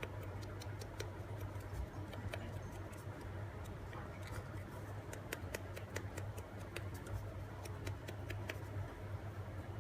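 Faint, irregular light taps of a foam sponge dauber dabbing ink onto a die-cut paper flower, several a second, over a steady low hum.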